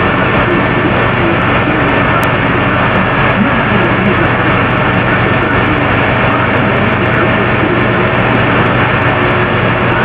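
Loud, steady hiss from a computer microphone recording of a room with every sound source switched off, with faint wavering low tones beneath it. The uploader takes it for over-the-air microwave communication.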